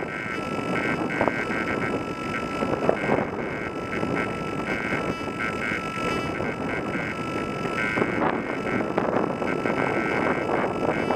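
Wind buffeting the microphone in an uneven rush, with a thin steady high tone and flickering higher tones running underneath.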